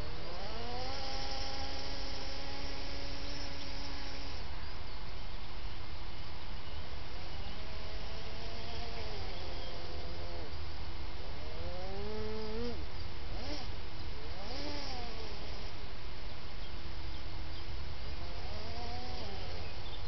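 Electric drive motors of a Kyosho Blizzard RC snow groomer whining. The pitch rises about half a second in and holds for a few seconds, then swoops up and down several times near the middle and again near the end as the throttle changes, over a steady low rumble.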